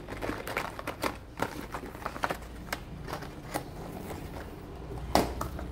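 Fishing lure packages being handled: a run of irregular small clicks and taps, with one sharper click about five seconds in.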